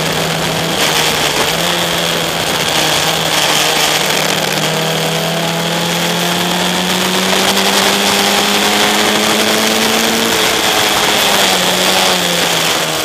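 Single-seater race car's engine heard from the cockpit at racing speed, its revs climbing slowly for several seconds and then dropping about ten seconds in, over rushing wind noise and a steady high whine.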